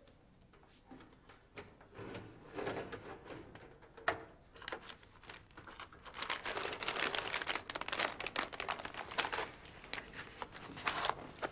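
Newspaper rustling and crumpling as the paper lining a parrot cage's floor is pulled out and handled. The crackling starts sparse and grows denser and louder about halfway through.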